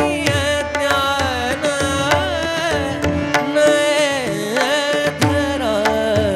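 Devotional Marathi abhang singing: a solo voice holds and ornaments a long melismatic phrase on the word "jñān", with tabla strokes and a steady held note underneath.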